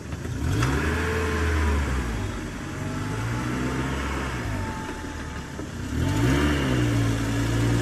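A car engine revving up and holding high, dropping back, then revving up and holding again about six seconds in.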